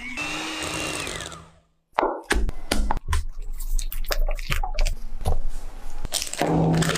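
Electric hand mixer whirring with its beaters in a glass bowl, winding down and stopping about a second and a half in. Then a spatula scrapes and knocks against the glass bowl, and near the end plastic wrap crinkles.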